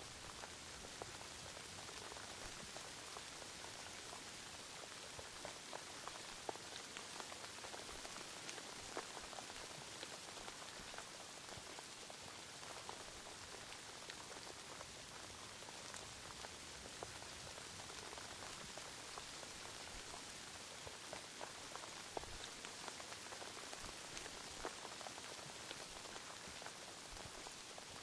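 Steady rain, an even hiss dotted with many scattered ticks of individual drops.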